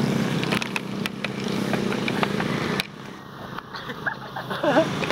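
Outdoor location sound: a steady low hum with noise, like nearby traffic or an engine, that cuts off abruptly about three seconds in to quieter ambience with a few short gliding calls near the end.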